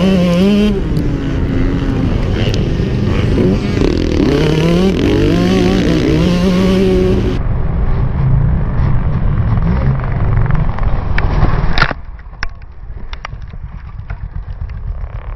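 Motocross dirt bike engine revving up and down hard over wind noise on the on-bike camera. About twelve seconds in, one sharp crash impact as the bike goes down, after which the engine noise drops to a lower rumble with scattered knocks and rattles.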